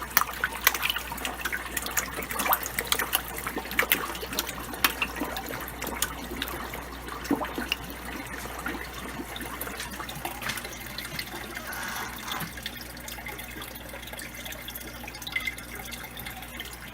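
Water trickling and splashing in fish-tank filters, with many small irregular drips and plinks over a steady low hum.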